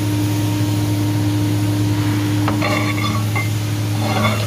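Steady low hum of running shop machinery, unchanging throughout. Two brief voice-like sounds rise over it in the background, about two and a half seconds in and again near the end.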